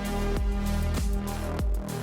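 Background music: an electronic track with a steady beat and deep bass notes.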